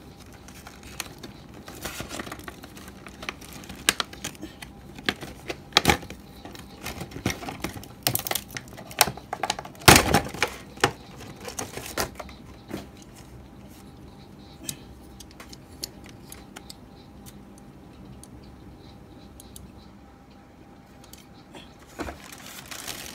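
Metal sockets and wrenches from a socket wrench set clicking and clinking as they are handled, loose pieces rattling in their case, with a louder knock about ten seconds in. The clinks thin out and grow quieter in the second half.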